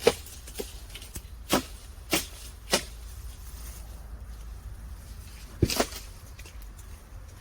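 About six sharp knocks at uneven intervals, with a quick double knock about two-thirds of the way through. These are the sounds of a maesil (green plum) harvest: the tree is beaten and shaken so the fruit drops.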